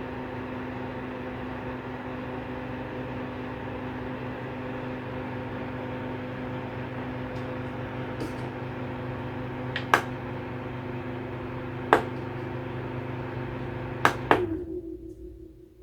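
Small rechargeable 6-inch circulator fan running with a steady motor hum. Sharp clicks come about ten and twelve seconds in, then two quick clicks near the end, after which the motor cuts out and the fan spins down to quiet.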